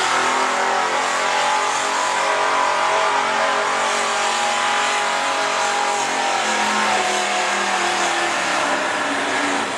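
Farm tractor's diesel engine pulling hard under load during a tractor-pull run, loud and steady, its pitch dropping a little about two-thirds of the way through.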